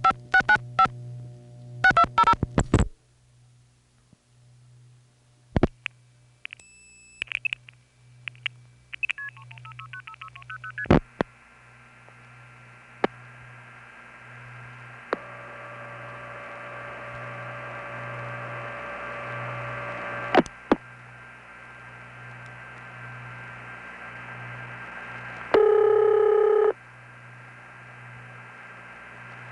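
Recorded long-distance telephone trunk signalling over a Bell System 4A toll connection. It opens with a rapid string of multifrequency (MF) tone bursts, then comes trunk clicks, a short high 2600 Hz supervisory tone about seven seconds in, and faint MF digits being outpulsed as the call is forced onto a reroute. From about eleven seconds the line is open, with hiss, a steady low hum and faint steady tones, broken by a few clicks and a loud tone about a second long near the end.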